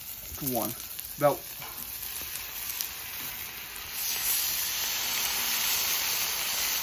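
Ribeye steaks sizzling in avocado oil on a flat top griddle at high searing heat. The sizzle gets louder about four seconds in, as a steak is flipped with tongs onto the hot steel.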